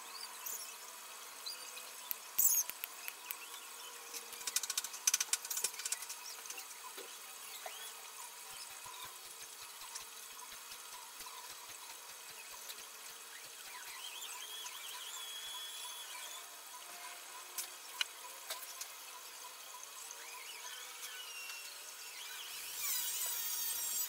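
Wire-mesh cage trap being handled, its wire clinking and rattling in scattered light clicks, most of them about five seconds in. Short high squeaks come in now and then, the longest near the end.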